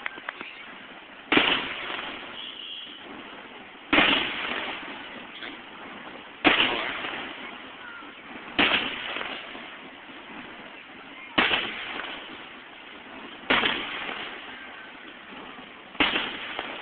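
Aerial firework shells bursting: seven loud bangs about two to three seconds apart, each fading away in a trailing echo, heard through a phone microphone.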